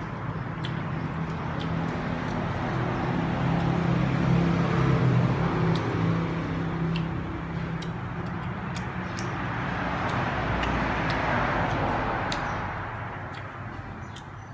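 A motor vehicle passing by: a steady engine hum and road noise swell to a peak about five seconds in and fade, then a second swell of road noise rises and dies away near the end. Scattered sharp clicks of biting and chewing crisp fruit sit underneath.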